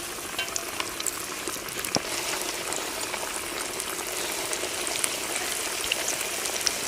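Batter-coated cauliflower pieces deep-frying in hot oil: a steady sizzle with a dense patter of small pops and crackles.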